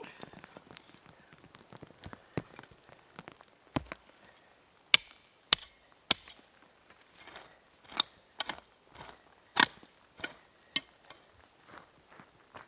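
Wood being chopped: about a dozen sharp blows at irregular intervals, loudest in the middle seconds.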